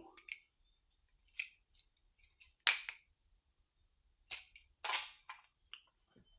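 A handful of sharp clicks and knocks, irregular and a second or so apart, the loudest nearly three seconds in; the sound of hard objects being handled during electrical work.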